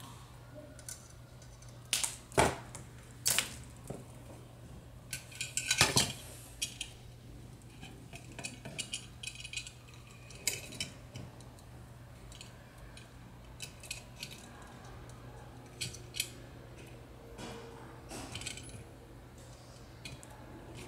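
Wire cutters snipping coloured craft wire, then small pliers clicking and metal tools clinking as the wire is bent into spirals: scattered sharp clicks, loudest about two seconds and six seconds in.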